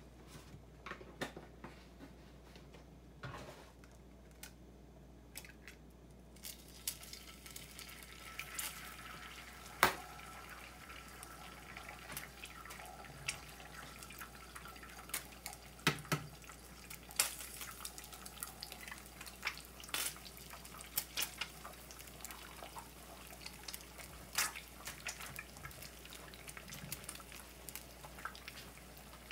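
Oil heating in a nonstick frying pan gives off sparse small pops, then eggs frying in it: a steady sizzle with frequent crackling spatters from about six seconds in, and a few sharp clicks.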